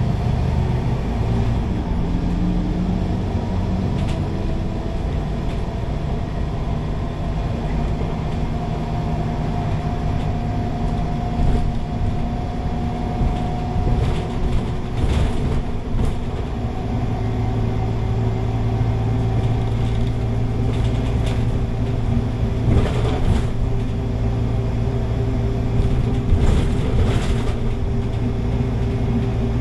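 Scania K280UB city bus heard from inside the cabin, its engine running under way with a low steady drone that shifts in pitch about halfway through. A few short knocks or rattles come in the second half.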